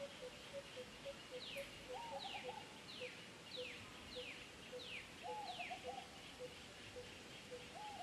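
Birds calling: a run of about six downward-sliding whistles, a few short lower chattering phrases, and a low note repeated about twice a second, over a faint steady insect hum.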